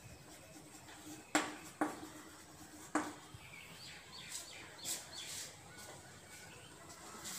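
Chalk knocking and scratching against a classroom chalkboard as a couple of words are written, with three sharp knocks in the first three seconds, then a few faint high bird chirps.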